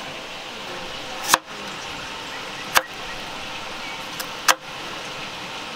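Large kitchen knife slicing through a red onion and striking a bamboo cutting board: three sharp chops about a second and a half apart, over a steady background hiss.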